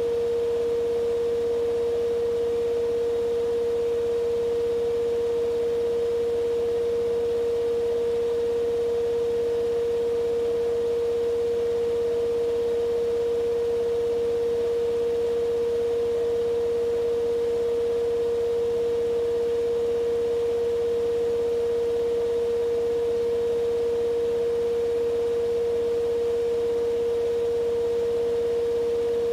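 Siemens iQ500 9 kg front-loading washing machine running in its spin cycle at a steady drum speed: an even motor whine over a low rumble, with no knocking. This is the sound of a healthy machine, with no sign of worn shock absorbers or bearings.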